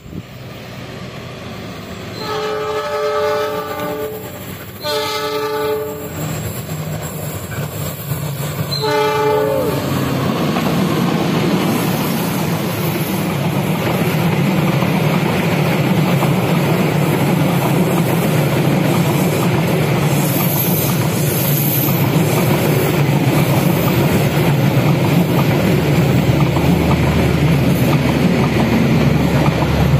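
Diesel locomotive horn sounding three times, two longer blasts and then a short one, followed by a passenger train passing close by: the locomotive's engine running and the coaches' wheels clattering over the rails in a steady rumble that grows louder toward the end.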